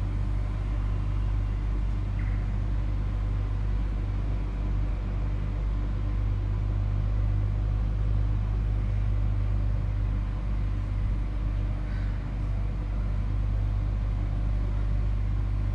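Melbourne Z-class tram running, a steady low rumble with a faint constant hum above it.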